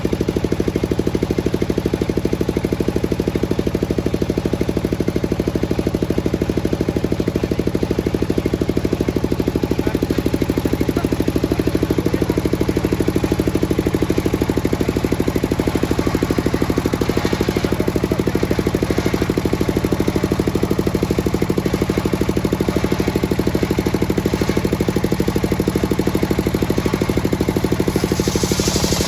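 Engine of a circular sawmill running steadily with a rapid, even knocking beat, with brief hissier stretches about two-thirds of the way through and again near the end.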